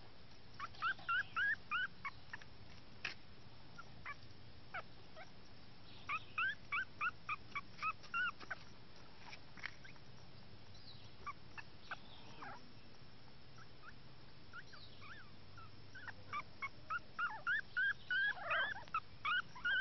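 Newborn chihuahua puppy crying in bouts of quick, high-pitched squeaks and whimpers, a few a second. The bouts come about a second in, again around six seconds in, and most densely near the end.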